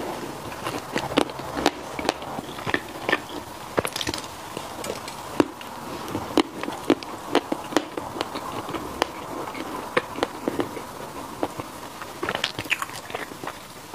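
Chewing of a soft sausage bread roll: a string of irregular short mouth clicks, with a quick cluster of them near the end.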